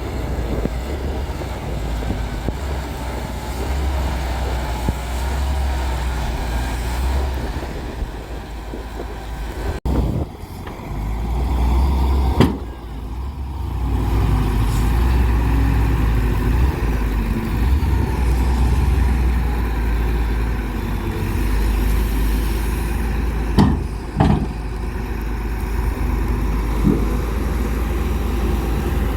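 Heavy diesel engine running steadily with a deep rumble, broken off abruptly about ten seconds in, with a few sharp knocks later on.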